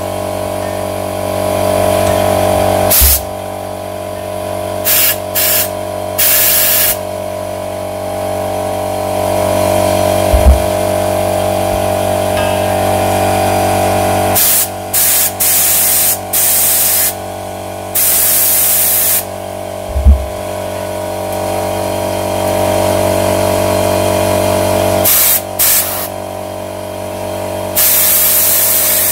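Compressed air hissing from an air blow gun in about a dozen short blasts, some a second or two long, fired through the oilway drillings of a Triumph Trident T160 crankshaft to blow out loosened sludge. A steady hum runs underneath, and there are two dull knocks.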